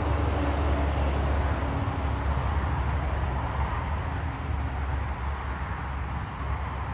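Steady road-traffic noise with a low rumble, easing off slightly toward the end.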